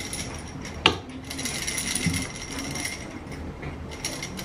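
A small baby-toy rattle being shaken, clinking, with one sharp clack about a second in.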